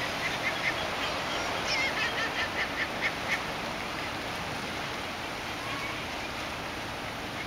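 California sea lions barking: a quick run of short, repeated barks over the first three seconds or so, then only the steady wash of surf.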